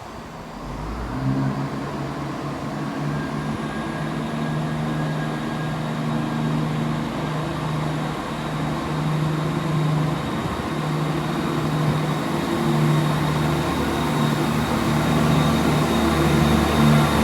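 A diesel train's engine running, a low pulsing drone that starts about a second in and grows steadily louder, with a faint high whine above it.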